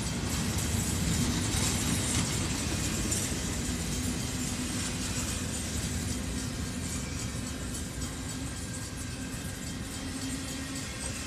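A CSX intermodal freight train's well cars, loaded with containers and trailers, rolling past close by: a steady, dense rumble of steel wheels on the rail that eases off slightly in the second half.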